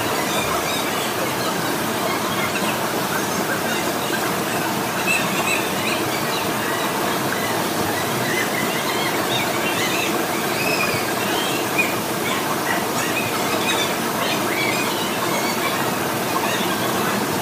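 Steady rush of a waterfall, an even roar of falling water with faint high chirps over it in the middle.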